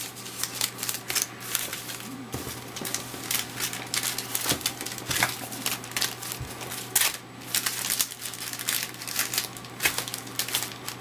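Trading-card pack wrappers crinkling and rustling as they are handled, with irregular sharp crackles throughout.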